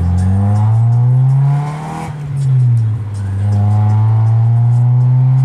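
Honda EG Civic with a very loud exhaust, heard from inside the cabin, accelerating hard in first gear. The revs climb, drop at the shift about a second and a half in with a short rise and fall, then climb again steadily in second gear.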